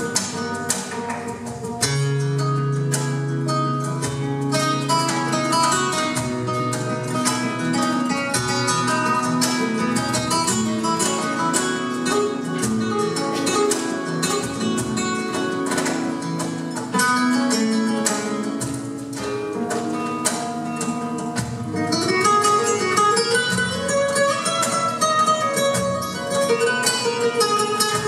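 Flamenco guitar music, nylon strings played live with many quick plucked notes and runs.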